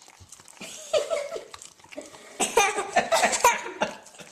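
People laughing: a short laugh about a second in, then a louder burst of laughter from about halfway that lasts over a second.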